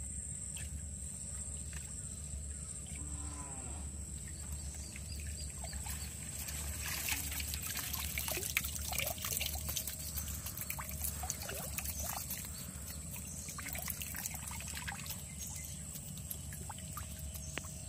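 Water trickling and dripping out of a woven bamboo fish trap as it is lifted from a shallow pool, with small splashes. The patter is busiest in the middle of the stretch and thins out toward the end.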